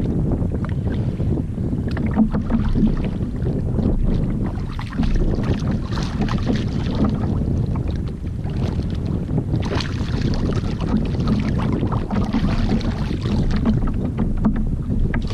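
Wind buffeting the microphone over water sloshing around a kayak on the open sea, a steady low rumble with scattered splashy hiss.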